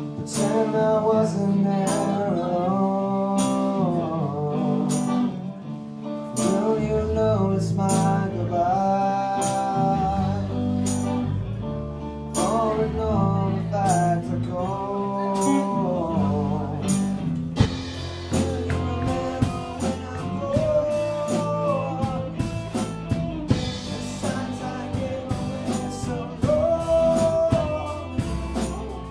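Live band playing a song: a male lead singer over electric guitars, bass and drums, with a steady drum beat.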